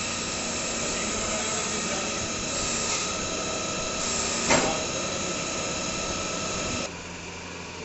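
CNC lathe running steadily, with several steady whining tones over a hiss. There is a sharp, brief sound about four and a half seconds in, and near the end much of the low hum cuts off abruptly, as if part of the machine stops.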